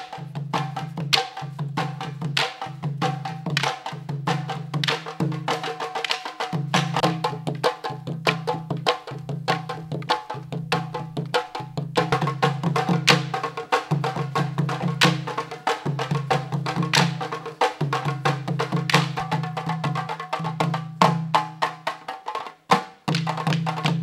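Wooden sticks clacking against each other in a fast, dense rhythm in a stick dance, over a low drum pulse that repeats about every second and a half.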